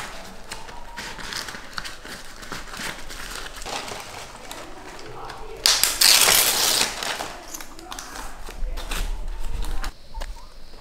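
Dried leaves crackling and crinkling as hands fold and press them around a sweet potato, with a loud crumpling rush about six seconds in. The sound drops away near the end.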